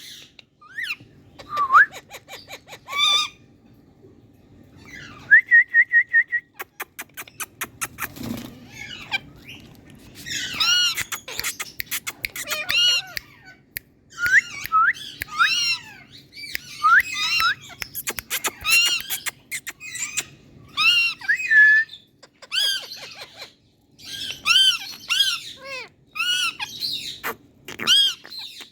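Indian ringneck parrots calling: clusters of short, arching squawks and chirps, with a held whistle about five seconds in and a quick run of clicks a couple of seconds later.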